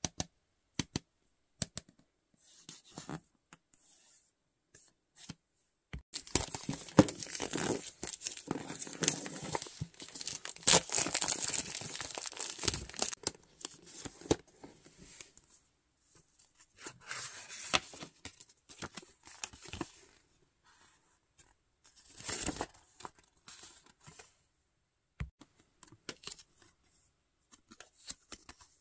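Toy packaging torn and crinkled open by hand. There are a few scattered clicks and taps at first. About six seconds in comes a long stretch of tearing and crinkling, the loudest part. After that there are only short rustles of paper as the instruction leaflet is handled.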